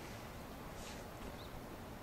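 Faint outdoor ambience: a steady low rumble and hiss, with a brief high scrape about a second in and a short, small chirp just after it.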